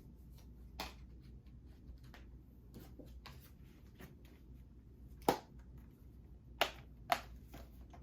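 Handling noise from a Blu-ray SteelBook case and its paper inserts: scattered clicks and taps, the loudest about five seconds in and two more close together near the end.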